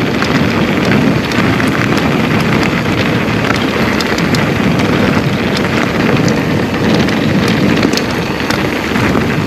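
Continuous noise of an electric mountain bike being ridden: wind buffeting the microphone along with tyre and trail rattle, scattered with small clicks.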